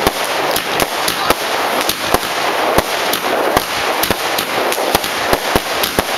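Single-ignition consumer firework barrage cake firing shot after shot: sharp bangs about four a second over continuous crackling from the bursting stars.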